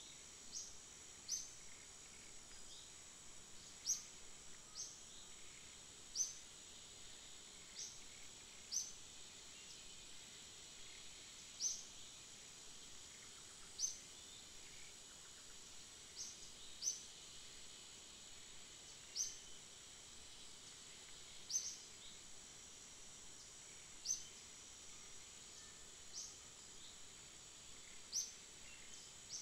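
Faint outdoor ambience: a steady high insect buzz, with a short, high chirp repeating every second or two.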